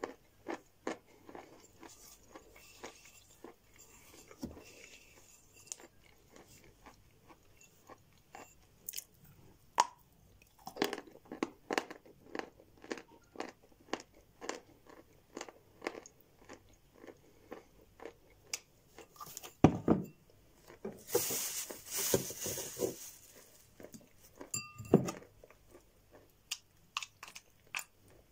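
Close-up crunching and chewing of sawn white chalk, bitten off a block: a run of crisp crunches one after another, with a longer, louder crunching stretch about 21 seconds in.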